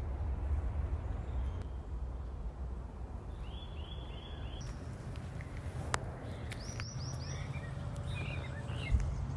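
Birds calling: a quick run of four repeated notes about three and a half seconds in, a second run of higher notes around seven seconds, then scattered chirps, over a steady low rumble.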